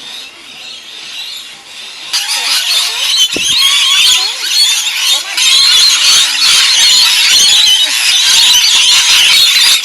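A flock of rainbow lorikeets screeching and chattering, a dense shrill din of many overlapping calls that grows much louder about two seconds in.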